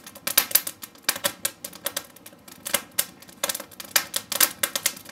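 Logs burning on a fireplace grate, crackling with irregular sharp pops, several a second.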